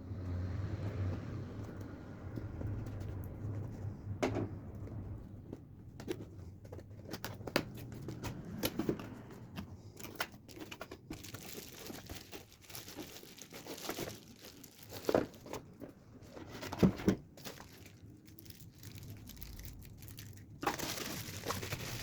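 Packaging being handled: plastic wrapping crinkling and rustling, with scattered clicks and a few louder knocks.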